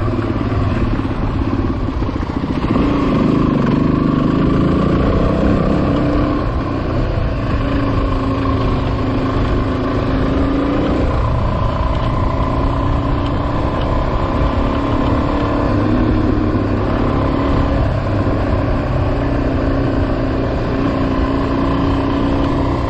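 Motorcycle engine running under way on a dirt road, its pitch rising and falling with the throttle over the first few seconds, then holding steadier, over a steady rush of wind and road noise.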